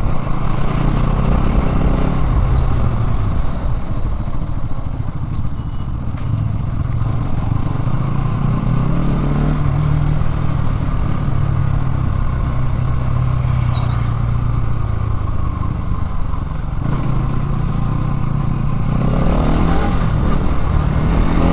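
Bajaj Pulsar NS200's single-cylinder engine running on its stock exhaust while the motorcycle is ridden, its note rising and falling a little with the throttle, over a steady rush of wind and road noise.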